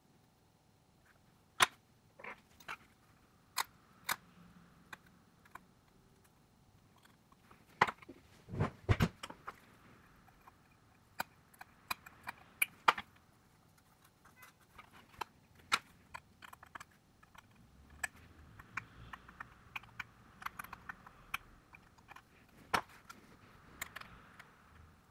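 Irregular sharp clicks and taps of small tools and parts being handled while working on a smartphone, with a quick run of knocks about nine seconds in.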